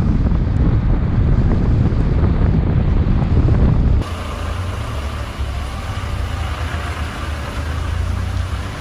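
Wind buffeting the microphone with a heavy low rumble; about four seconds in it cuts abruptly to a quieter, steady rush of vehicle road noise.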